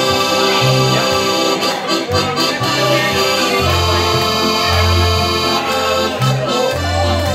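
Piano accordion playing an instrumental tune: a melody and chords over held bass notes that change every second or so.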